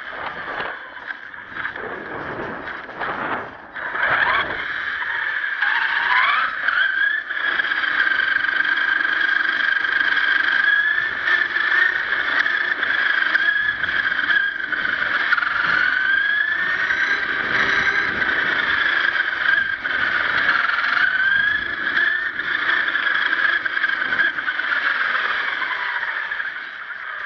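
1/10-scale HSP RC monster truck's motor and drivetrain whining as it drives. The pitch climbs sharply a few times in the first seven seconds as it picks up speed, then stays high with small dips and rises as the throttle changes.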